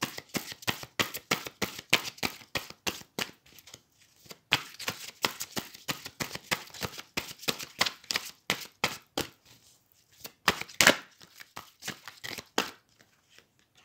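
A deck of oracle cards being shuffled by hand: a rapid run of quick card slaps and clicks, about five a second, that stops shortly before the end.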